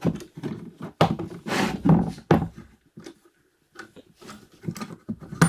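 Irregular knocks, clunks and rattles of metal and cardboard parts being handled and fitted during drill press assembly, with a short quiet pause about three seconds in.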